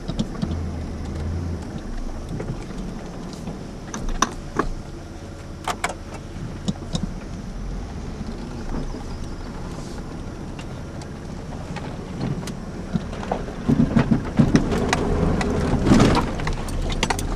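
Cab interior of a 2002 GMC Sonoma ZR2 driving a rough trail: the 4.3-litre V6 runs with a steady low rumble under scattered knocks and rattles from the cab. The knocks and rattles grow heavier and more frequent near the end as the truck jolts over bumps.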